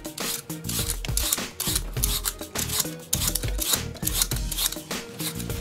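Metal vegetable peeler scraping the skin off an apple in repeated short strokes, over background music.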